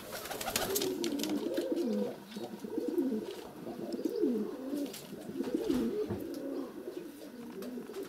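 Domestic pigeons cooing in courtship: a continuous run of rolling, wavering coos, several birds overlapping, with a few soft clicks among them.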